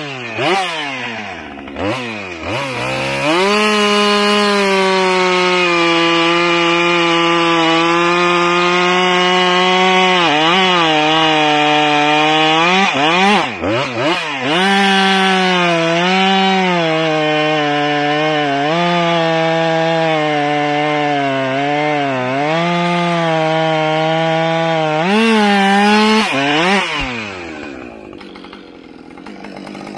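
Husqvarna 550 XP Mark II two-stroke chainsaw with a 20-inch bar cutting wood. It is revved in a few short blips, then held at full throttle through the cut, its pitch dipping and picking back up as the chain loads in the wood. Near the end it drops back to idle.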